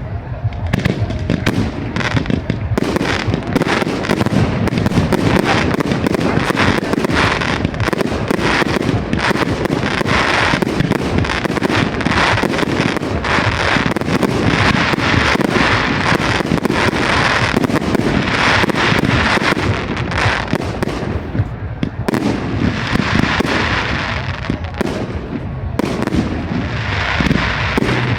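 Fireworks display going off without a break: dense, overlapping bangs and crackling.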